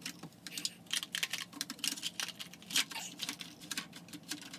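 Plastic highlighters and pens clicking and rattling against a small plastic drawer organizer as they are sorted by hand: a quick, irregular run of light clicks and taps.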